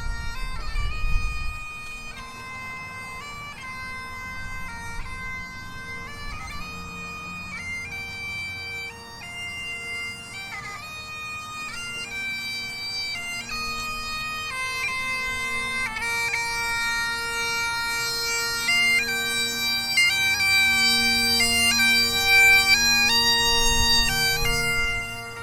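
Bagpipes playing a tune: the chanter's stepping melody over steady drones, growing gradually louder.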